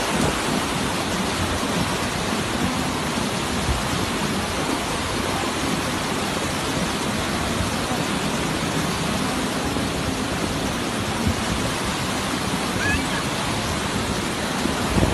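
Rushing of a muddy flash-flood torrent (a mudflow) pouring down a street, a loud, steady wash of water noise.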